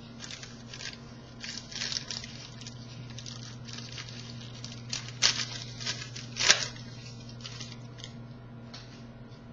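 Hockey trading cards handled and slid against each other, an irregular series of short scratchy rustles with a couple of louder swipes near the middle, over a steady low hum.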